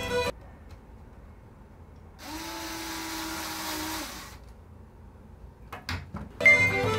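A small handheld electric motor buzzing steadily for about two seconds, then a few short clicks.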